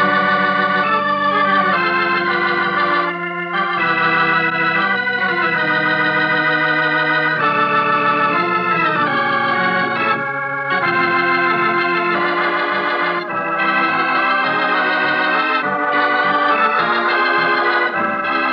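Organ music: sustained chords that change every second or two, with a few short breaks between phrases.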